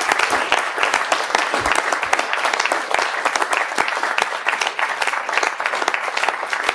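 Audience applauding: many people clapping steadily together, a dense and even patter of claps.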